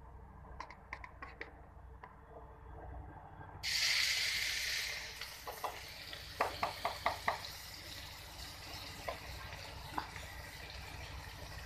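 Chopped onion dropped into hot cooking oil: a sudden loud sizzle about three and a half seconds in that settles into steady frying. A quick run of clicks follows a few seconds later.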